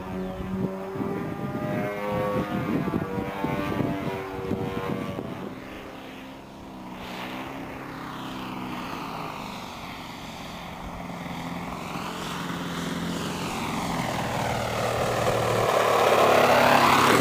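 Model aerobatic plane's engine and propeller running in flight. Around six seconds in it drops to a lower, steadier drone and grows steadily louder as the plane comes in low to land.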